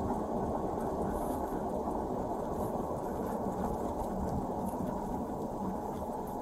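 Steady low rumble of a car heard from inside its cabin: engine and road noise without clear changes.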